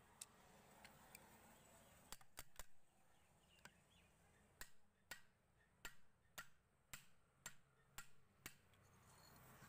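Faint, sharp knocks on the metal casing of a domestic water pump motor as it is tapped together during reassembly: a few scattered knocks, then from about halfway a regular series of about two knocks a second.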